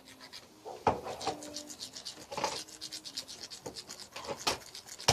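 Homemade glue-and-lotion slime being mixed in its container: irregular scraping and rubbing strokes, coming more often in the second half.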